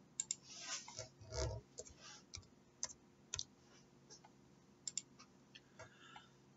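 Faint computer mouse clicks, scattered singly and in quick pairs, as a spreadsheet filter is set.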